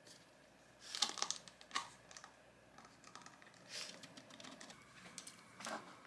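Faint crackling and clicking of thin plastic takeout food trays being handled, in several short clusters.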